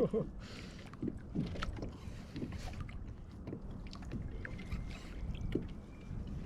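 Steady low rumble of wind and water around a small fishing boat, with scattered light clicks and knocks.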